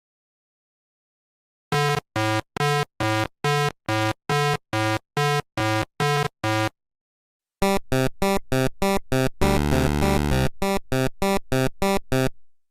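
Synthesizer music: a steady run of short notes at about two a second, then a pause, then a quicker run of short notes with one longer chord in the middle.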